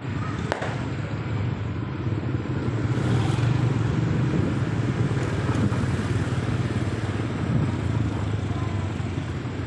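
Motor scooter's engine running at a steady low drone while riding along a lane, with road noise.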